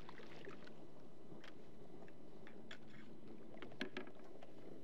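Water lapping against a kayak hull, with scattered faint clicks and taps of fishing gear being handled; one slightly louder tap about four seconds in.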